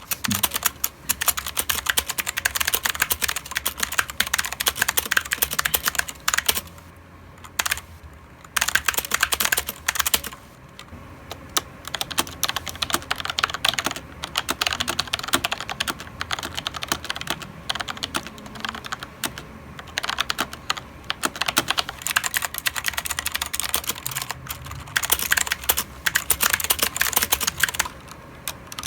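Mechanical keyboard being typed on in quick, continuous runs of key clicks, broken by a few brief pauses.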